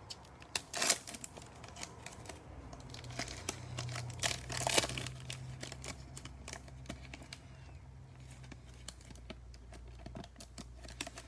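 Foil wrapper of a Panini Mosaic football card pack crinkling and tearing as it is pulled open by hand, in irregular crackles that are loudest about a second in and again near the middle.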